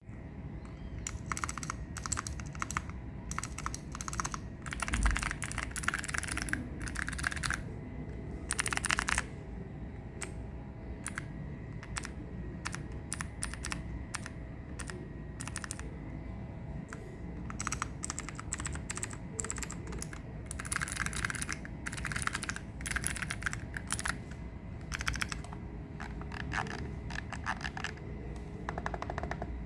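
Royal Kludge RK65 mechanical keyboard with clicky blue switches being typed on, in quick runs of keystrokes broken by short pauses.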